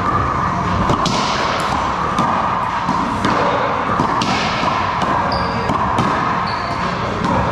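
Racquetball rally: the rubber ball cracks off racquets and the front wall about once a second, each hit sharp and echoing. A steady background hum runs under the hits.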